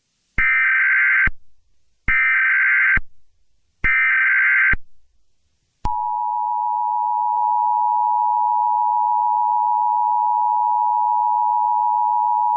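Emergency Alert System signals: three bursts of the SAME header's digital data screech, each just under a second long, then the steady two-tone EAS attention signal starting about six seconds in.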